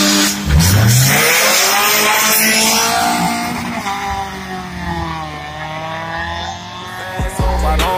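A car engine revving hard: its pitch climbs, sinks slowly, rises again and then fades near the end. A hiss of tyre noise runs over the first couple of seconds.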